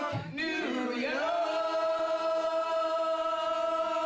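Two people singing a TV theme song into microphones, a short moving phrase that settles about a second in onto a long held note.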